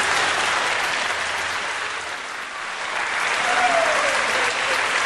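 Audience applauding. The clapping eases off about two seconds in and swells again a second later, with a brief falling voice call over it just after the middle.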